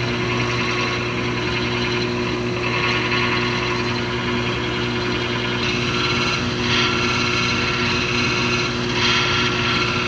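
GE washing machine running with a grinding noise: a steady motor hum under a rough, rasping grind that swells and fades every few seconds and grows stronger in the second half.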